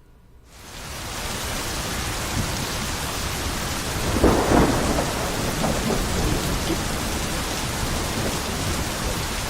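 Thunderstorm sound effect: heavy, pouring rain that fades in over the first second and holds steady, with a clap of thunder about four seconds in.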